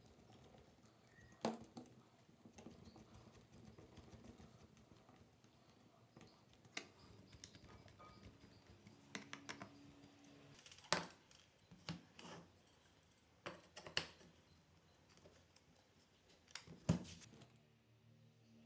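Faint scattered clicks and light knocks of hand assembly: a screwdriver driving screws into a wooden frame and small metal parts being handled.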